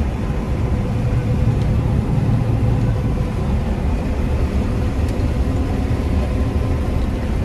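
Combine harvester running steadily while harvesting soybeans: a low engine drone with a faint steady whine over it.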